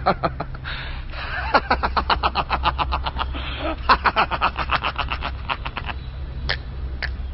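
A man laughing hard in long bursts of rapid, evenly paced ha-ha pulses, over a steady low rumble. Two short sharp sounds come near the end.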